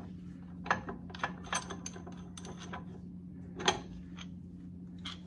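Irregular metal clicks and clinks of a threaded axle-seal installer tool being loosened and pulled out of a Jeep TJ front axle's differential housing, after it has driven a new axle seal home. The loudest clink comes a little over three and a half seconds in, over a steady low hum.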